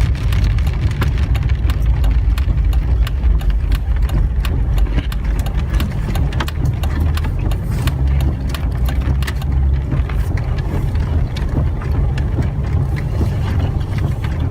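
Inside the cabin of a 2013 Jeep Wrangler Unlimited Rubicon driving a dirt road: a steady low rumble of engine and tyres, with many small sharp ticks and knocks throughout.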